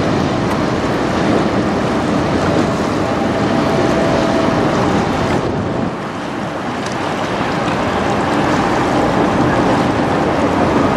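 A passing lake freighter: water gushing from its hull discharge outlets and splashing into the river, over a faint steady hum from the ship, with wind buffeting the microphone. The sound drops about halfway through and then builds again.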